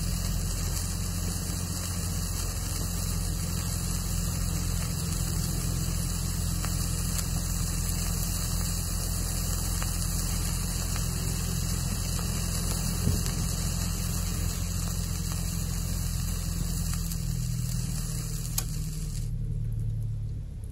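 Black snake firework pellets burning under a red-hot steel ball: a steady hiss that stops suddenly near the end, over a steady low hum.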